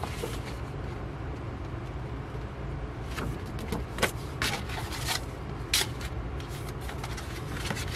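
Paper and thin cardstock being handled: a few short rustles and taps from a folded poster and album inserts, over a steady low background hum.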